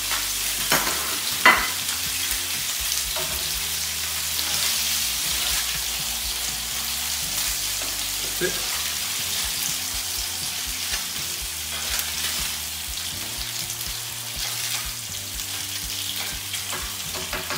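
Marinated salmon slices sizzling steadily on a hot ridged grill pan, with a couple of sharp clicks near the start.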